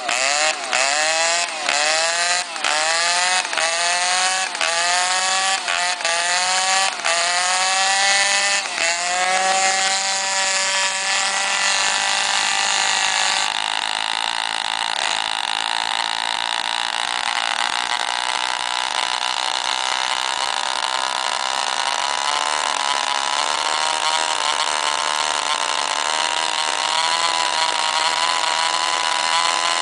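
Small engine of a radio-controlled dragster revved in a quick series of rising blips, about one and a half a second, for the first nine seconds or so, then running at a steady speed.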